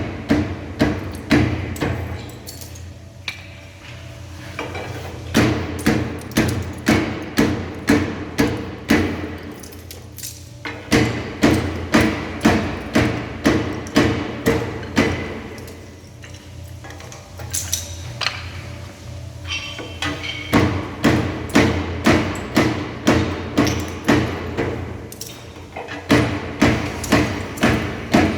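Decorative stone splitting machine's electric-driven blade striking stone again and again, about three hard knocks a second over a steady motor hum, with a few short pauses between runs of strikes.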